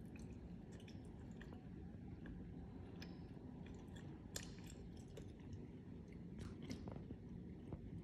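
Faint scattered clicks and crackles over a low, steady rumble, with a few sharper clicks in the second half.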